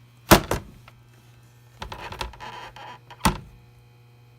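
Sharp knocks and a short rattling stretch from handling an opened 20 MB hard drive, over a steady low hum. The drive's platters are stuck by stiction and are not spinning up.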